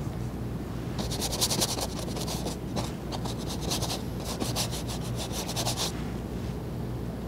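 A paintbrush scrubbing oil paint onto a stretched canvas in quick back-and-forth strokes. The strokes come in two runs, the first starting about a second in and the second, longer one stopping shortly before the end.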